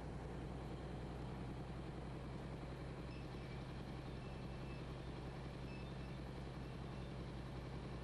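Crawler crane's engine running with a steady low drone, with two brief faint high squeaks about three and six seconds in.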